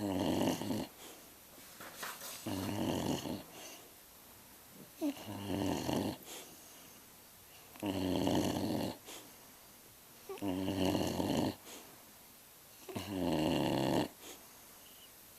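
A sleeping pet snoring and grunting, one rough snore about every two and a half seconds, six in all.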